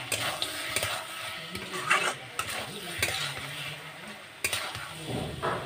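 Metal spatula scraping and stirring a spiced chicken and potato curry in an aluminium kadai, with a series of scrapes and knocks against the pan roughly once a second over a light sizzle. The masala-coated meat is being fried down nearly dry, so it sizzles rather than bubbles.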